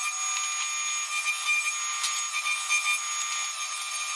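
Table saw running with a steady whine of several fixed pitches while a pine board is fed along the fence.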